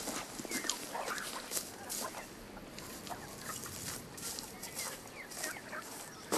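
Chickens clucking in short scattered calls, with brief knocks and clatter among them.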